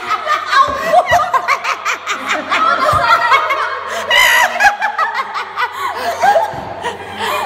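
Laughter from several people at once, with a woman laughing loudly among them.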